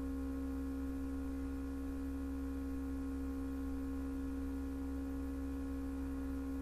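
Steady electrical hum: a low drone with several steady tones stacked above it, unchanging in level and pitch.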